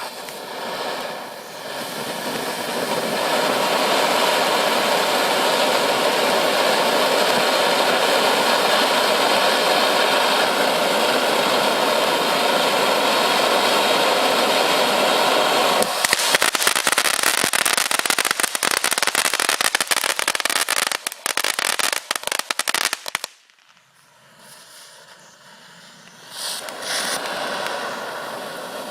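Ground firework fountain spraying with a steady loud hiss, which changes about halfway through into a dense, fast crackle. The crackle cuts off suddenly, and after a short lull a second fountain phase starts hissing near the end.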